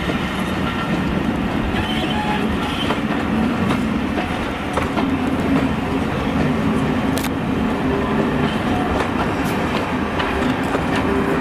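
Passenger coaches of a steam-hauled train rolling past, a steady rumble of wheels on rail with scattered sharp clicks as the wheels cross rail joints.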